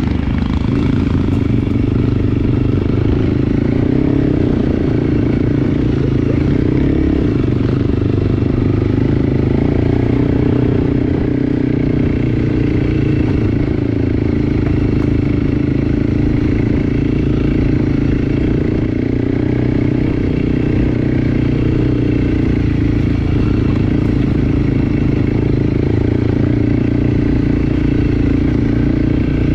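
Enduro dirt bike engine running steadily under way, its pitch holding fairly even.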